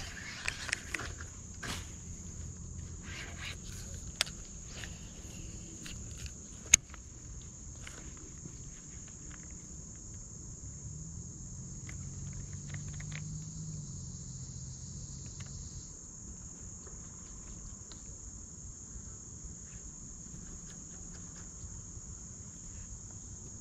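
A steady, high-pitched chorus of insects droning continuously. A few faint clicks and taps come in the first several seconds, and one sharp click about seven seconds in.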